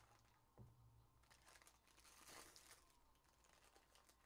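Faint crinkling and tearing of a trading-card pack's foil wrapper as it is ripped open, loudest near the middle, with a soft knock about half a second in.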